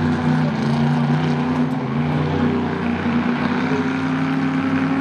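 Monster truck engine running at moderate revs, with a steady note that rises and dips a little as the truck moves at low speed.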